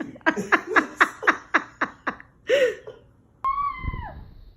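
A person laughing in a quick run of short bursts, then, after a sudden cut about three and a half seconds in, a long high-pitched animal call that drops in pitch at its end.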